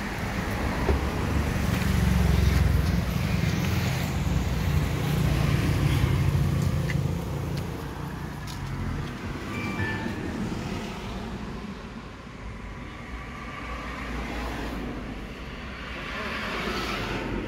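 Low rumble of road traffic and a car engine, loudest in the first half and quieter from about halfway through.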